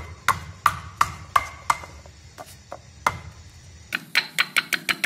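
Stone pestle pounding lemongrass stalks against a stone mortar to bruise them: sharp knocks about three a second, a few lighter ones in the middle, then a quicker run of knocks in the last second.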